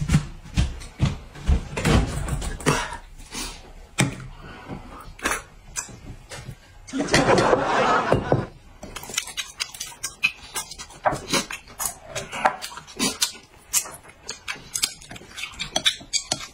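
Close-up eating sounds: many short clicks of chopsticks and fingers against a bowl and chewing, with a longer, denser noisy stretch about seven seconds in.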